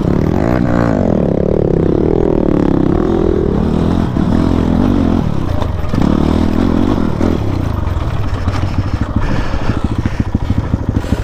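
Motorcycle engine under throttle on a rough off-road track, its pitch rising and falling as the rider works the throttle. Later it drops to a slow, beating run with the separate firing pulses audible, as the bike needs revs to keep running smoothly.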